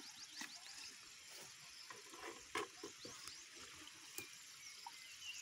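A few faint knocks of plastic and tin containers being handled on a wooden bench, with one louder knock about halfway through. A few faint high chirps near the end.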